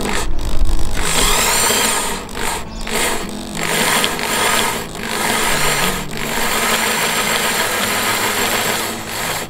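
A power drill spinning a hole saw that follows a pilot hole, cutting into the fiberglass of a sailboat hull. It makes a loud grinding noise that drops away briefly several times as the cut eases off and resumes.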